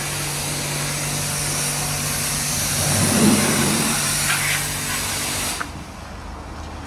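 A self-service car wash's high-pressure lance spraying, a steady hiss with the pump's hum beneath it. Both cut off suddenly near the end.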